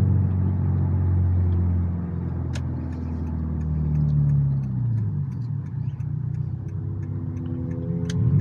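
Subaru's turbocharged flat-four engine with a catless downpipe, running under way. It holds a steady note, then drops, revs up and falls back about halfway through, and rises again near the end. A couple of sharp clicks are heard.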